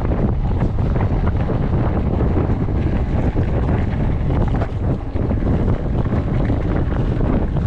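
Steady wind buffeting the action camera's microphone during a mountain-bike ride, with scattered clicks and rattles from the bike on the dirt trail.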